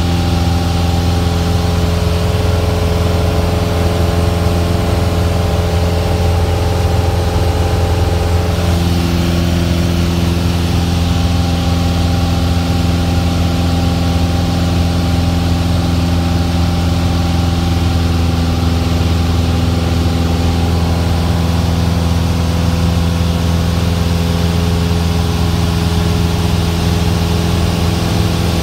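Cessna's piston engine and propeller droning steadily in flight, heard inside the cabin. The tone shifts slightly about nine seconds in.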